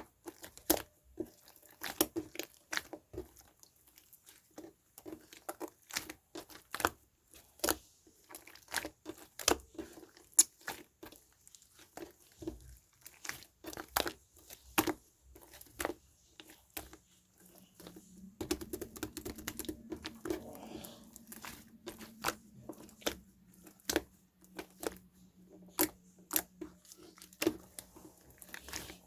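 Close-up handling of paper and plastic: irregular crinkling, tearing and small taps and clicks. A low steady hum joins about two-thirds of the way in.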